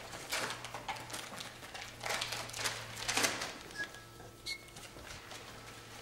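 Paper rustling and small clicks as a peel-apart Polaroid print is handled. Two short electronic bleeps come about four seconds in: studio flash heads signalling they have recharged and are ready to fire.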